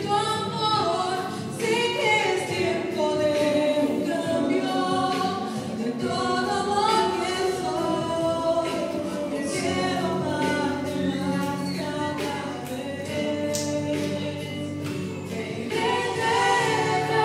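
A trio of women singing a Christian song together into microphones, their voices amplified through the church's loudspeakers.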